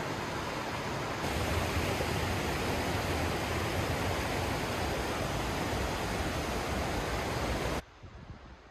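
Rushing water of a mountain stream, a steady dense rush; it gets a little louder about a second in and cuts off abruptly near the end.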